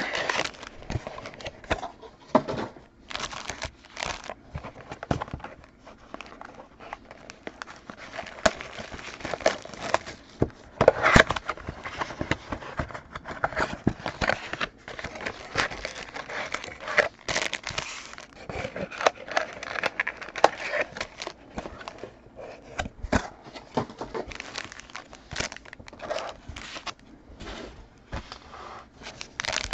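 Trading-card packs being torn open and their wrappers crinkled and handled: a long run of irregular crackling and rustling.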